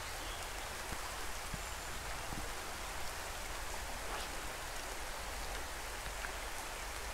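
Steady rain falling, an even hiss with scattered individual drops ticking close by.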